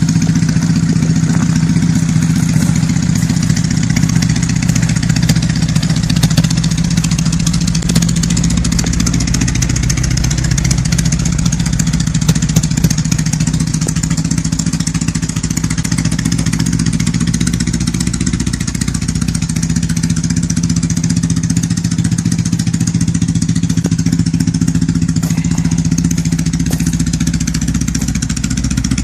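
Motorcycle engine running steadily at an even pitch, dipping slightly in level partway through.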